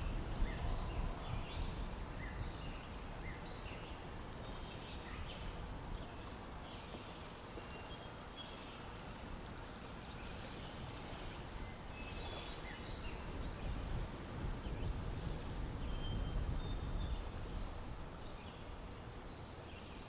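Outdoor ambience: a steady low rumble of noise with scattered short bird chirps throughout, swelling slightly about two-thirds of the way in.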